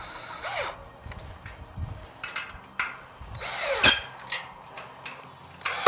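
Cordless drill driving bolts into a metal frame in short bursts that rise and fall in pitch, among clicks and knocks of metal, with a sharp knock just before four seconds in.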